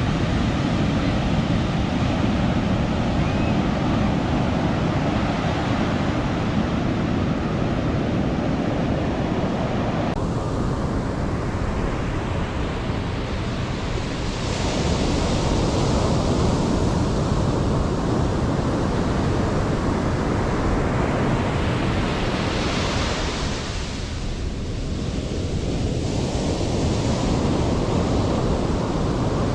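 Ocean surf breaking and washing up the beach in a continuous rush, with louder, hissing surges as waves break about 15 and 23 seconds in. Wind rumbles on the microphone underneath.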